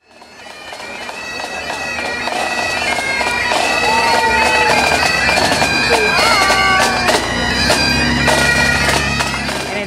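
Music on a wind instrument: a melody played over steady held drone notes, fading in over the first couple of seconds.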